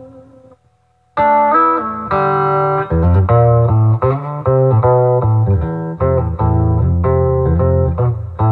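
Electric guitar played through an Acoustic Control Corp 260 solid-state amp head set to its 'Gretsch' tone, with the bass all the way up. A held chord fades out, and after a brief silence about a second in come picked single-note lines with a heavy low end.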